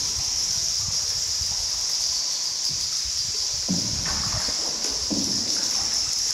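Water lapping and sloshing around a tour boat moving along an underground cave river, under a constant high-pitched hiss, with a few faint murmured voices.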